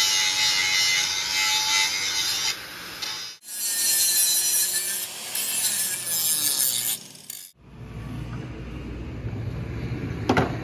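Angle grinder with an abrasive disc grinding into the steel socket of a tie rod end, in two stretches with a break about three seconds in. The grinding stops about seven and a half seconds in, leaving quieter, lower workshop noise and a couple of sharp metal knocks near the end.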